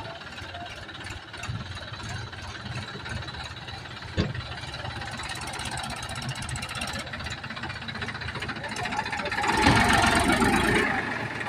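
Massey Ferguson 246 diesel tractor engine running under load as it hauls a loaded trailer up a muddy slope, with a clattering diesel note. A single sharp knock comes about four seconds in, and the engine grows louder for a second or so near the end before settling back.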